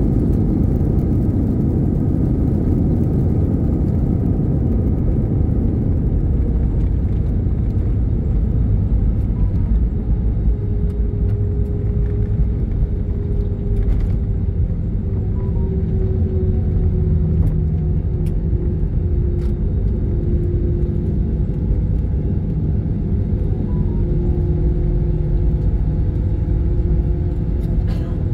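Cabin noise of an airliner rolling on the ground after landing: a steady low rumble from the wheels and jet engines. From about six seconds in, an engine tone joins it and slowly falls in pitch.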